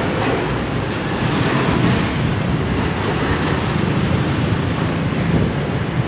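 Heavy road traffic passing close by: a container truck's diesel engine and motorcycles, a loud, steady rumble.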